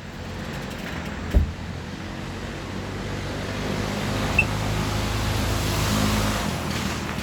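Mini bike engine passing along the street, growing louder to a peak about six seconds in and then dropping away. A sharp knock just over a second in.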